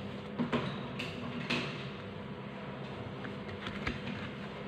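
Scissors snipping through felt a few times in the first second and a half, then light ticks as they are laid down, over a steady low hum.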